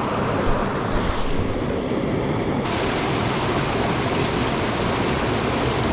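Small cascade of stream water pouring over boulders into a pool, a steady rushing that turns brighter and hissier about halfway through.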